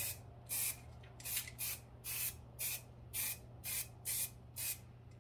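Can of water-based spray paint sprayed in short hissing bursts, about two a second, each a quick tap on the nozzle.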